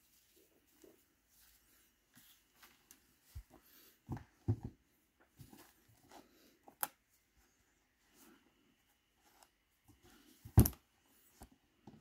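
Handling noise from gloved hands working the laces of leather Oxford shoes and moving the shoes on a table: soft rustling with scattered knocks and clicks, a cluster of knocks about four seconds in and the loudest knock near the end.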